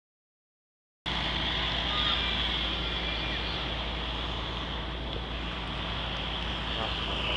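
Dead silence for about a second, then steady outdoor background noise: a constant hiss with a low rumble, distant traffic and faint voices of passers-by.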